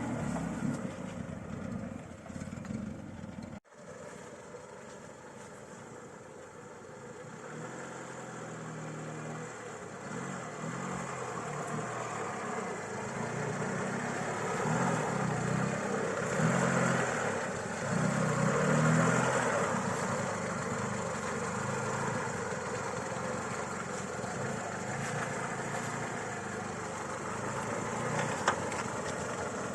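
Lada Niva VAZ-21218's four-cylinder petrol engine running off-road, its revs rising and falling as it drives. The sound cuts off sharply about four seconds in and comes back at once.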